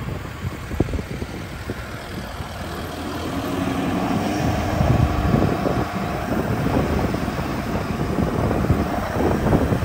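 Road and engine noise inside a moving vehicle: a steady low rumble that grows louder about four seconds in.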